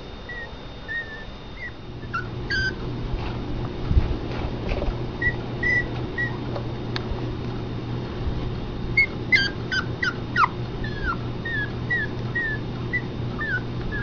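Young Pomeranian puppies whimpering in short, high squeaks scattered throughout, with a quicker run of cries about nine to eleven seconds in, some falling in pitch. A low steady hum starts about two seconds in.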